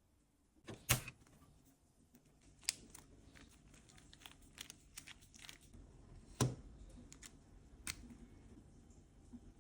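Small tools being handled: a few sharp clacks and many light ticks and clicks of hard plastic and metal pieces, like screwdriver bits and a case.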